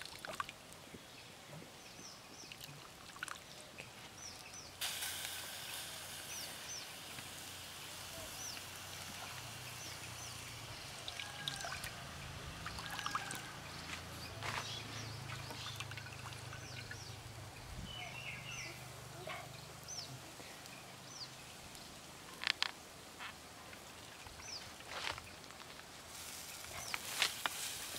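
Water trickling and dripping back into an aluminium bowl as handfuls of soaked, chopped banana are lifted out and squeezed, with short high chirps in the background and a few sharp clicks near the end.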